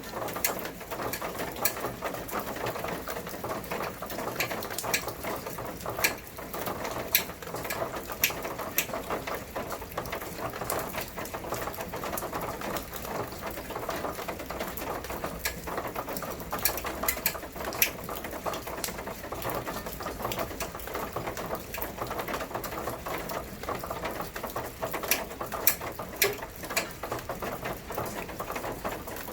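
Steady rain, with frequent sharp ticks of single drops striking at irregular intervals.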